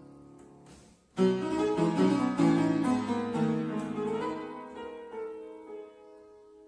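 An early-19th-century London piano, a William Stoddart made around 1820, played by hand. Quiet held notes come first, then a brief gap about a second in. After that comes a loud passage of struck chords that gradually dies away, the last notes left ringing.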